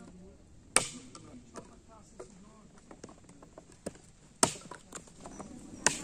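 Split firewood logs being handled and set down: three sharp wooden knocks, about a second in, at four and a half seconds and near the end, with lighter taps between.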